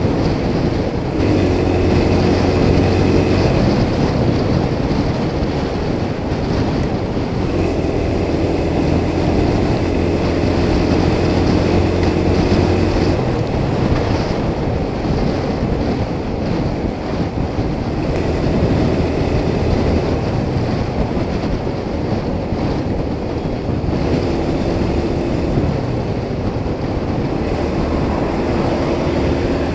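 Motorcycle cruising at highway speed: a steady rush of wind and road noise on the microphone, with the engine's even hum rising out of it in stretches and sinking back under the wind.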